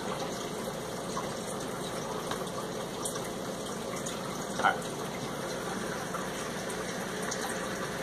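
Steady rushing background noise with one short, sharp sound about halfway through.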